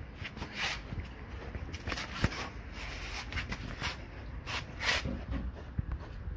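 Irregular close-up scuffing and rustling with a few soft knocks, from a dog mouthing and tugging a rubber-soled shoe and shifting its paws on tile.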